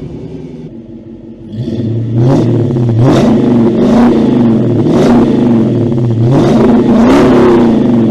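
Supercharged V8 muscle car idling, then revved in a run of about seven quick throttle blips, each rising and falling back, through its exhaust.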